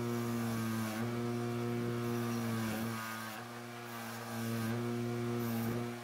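DeWalt bench grinder running with a steady motor hum while a cast copper arrowhead is held against its spinning wire wheel, the hissing brush noise coming and going as the piece is moved and turned.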